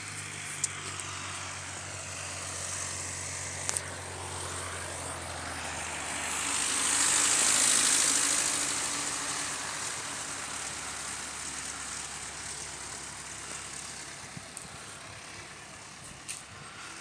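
Light single-engine propeller plane passing by: the engine and propeller noise swells to its loudest about halfway through, then fades as it moves away.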